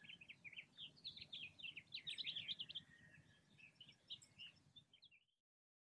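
Faint birdsong: many quick chirps and twitters, busiest around the middle, thinning out and stopping abruptly about five seconds in.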